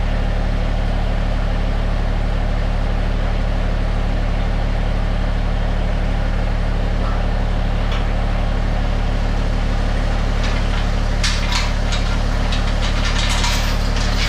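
An engine idling steadily with a low, even drone. Near the end a run of sharp knocks and clatter starts up over it.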